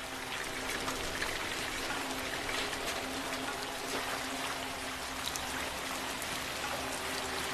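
Fountain water splashing steadily, with a soft held note of background music under it.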